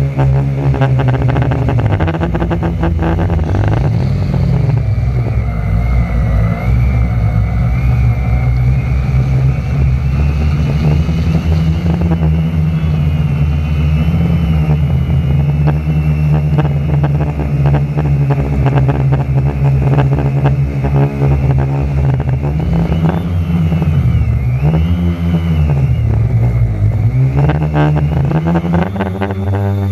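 Electric motors and propellers of a 450-size quadcopter, heard from a camera on its frame: a loud, steady buzzing hum with a higher wavering whine above it. Its pitch dips and rises several times near the end as the throttle changes. Wind buffets the microphone throughout.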